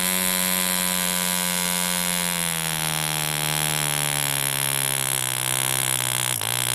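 1945 French Stab 1.25 cc two-stroke model diesel engine running flat out, then throttled back progressively with its original choke-type throttle. Its high, steady buzz falls smoothly in pitch from about two seconds in, and turns uneven just before the end as it slows toward idle.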